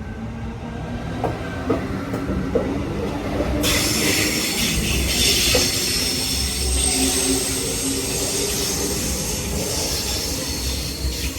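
A Sydney Trains Tangara electric suburban train running along the platform: a low rumble with a few sharp clicks of wheels over rail joints. About four seconds in, a loud high squealing hiss from the wheels and brakes sets in and carries on.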